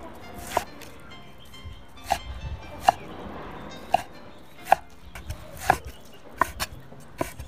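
Kitchen cleaver chopping blanched greens for chongcai (Yunnan pungent pickled greens) against a wooden cutting board: about ten sharp chops at an uneven pace, some struck harder than others.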